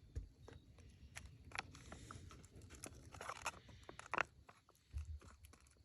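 Faint rustling and scattered small clicks of a plastic food pouch being handled, its zip closure being pressed shut. The closure is not sealing.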